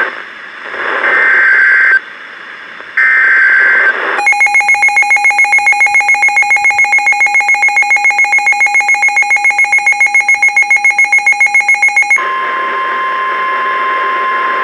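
Emergency Alert System tones from a NOAA Weather Radio warning: the end of one buzzy data burst and two more (the SAME header) about a second apart, then a shrill electronic alarm beeping rapidly, about five or six pulses a second, for some eight seconds. About twelve seconds in it changes to a single steady tone, the weather radio's warning alarm tone.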